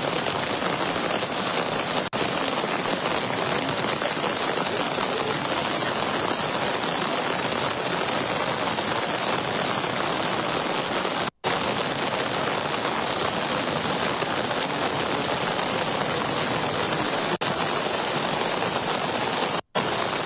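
Steady hiss of heavy rain and flowing floodwater. It drops out suddenly twice, briefly, once about eleven seconds in and once near the end.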